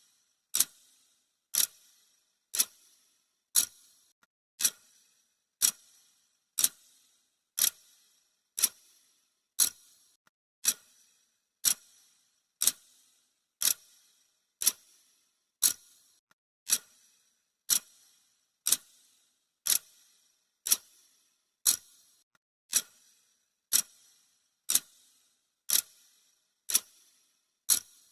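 Clock ticking sound effect of a countdown timer: one sharp, bright tick each second, evenly spaced and steady.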